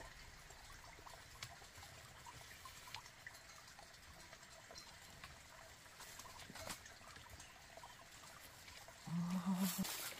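Faint rustling and scattered light clicks of dry twigs and leaves as a red junglefowl decoy rooster is lifted down from a branch and handled. Near the end, a short low hum of a man's voice.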